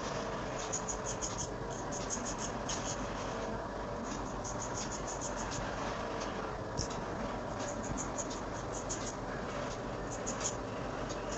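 Straight razor shaving a head against the grain, the blade scraping through the hair in clusters of quick short strokes with brief pauses between.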